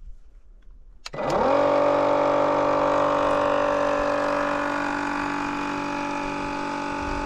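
Cordless battery-powered fluid transfer pump switching on about a second in: a click, then its motor spins up quickly to a steady whine. It is pumping fresh oil from a bucket through hoses into the Komatsu D31 bulldozer's transmission after a filter change.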